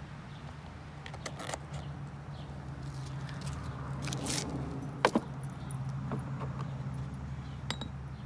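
Scattered light clinks and clicks of small metal parts and tools being handled, with one sharp knock about five seconds in, over a steady low hum.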